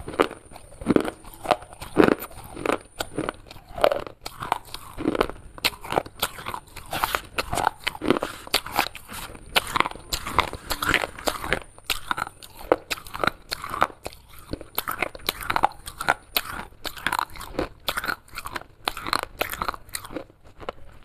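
Close-up chewing and crunching of broken clay pieces in the mouth: a rapid, irregular string of crisp crunches with short pauses between bites.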